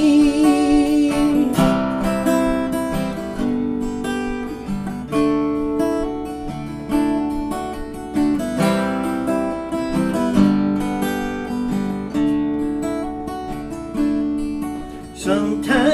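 Instrumental passage of a song: acoustic guitar strumming chords, with a new chord struck every couple of seconds.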